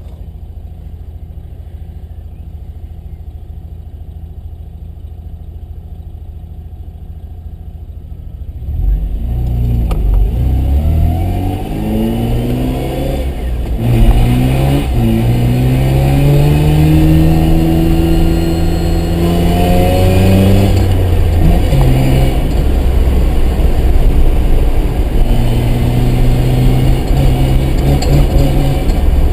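Mazda RX-7 rotary engine, at first running low and steady, then about nine seconds in picking up loudly as the car accelerates. The revs climb and fall back several times, as through gear changes.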